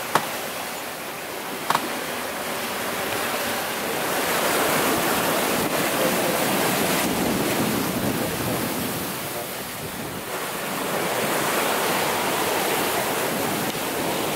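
Sailing yacht's bow wave rushing and foaming along the hull while she sails in about 20 knots of wind, with wind on the microphone. The rush of water swells and eases twice. Two short clicks come in the first two seconds.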